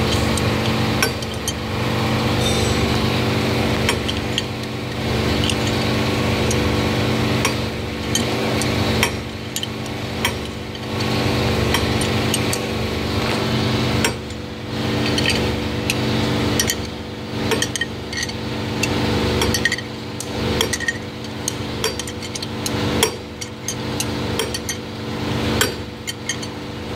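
Ratchet wrench turning the nut of an injector cup puller on a Volvo D13 diesel cylinder head. The ratchet clicks and the steel tools clink again and again as the puller draws a copper injector cup out of its bore. A steady hum runs underneath.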